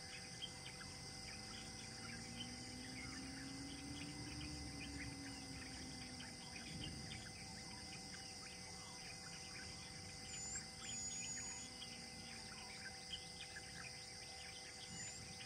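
Forest ambience: a steady high drone of insects with many short bird chirps throughout and a few brief high whistled bird notes, the clearest about two-thirds of the way in.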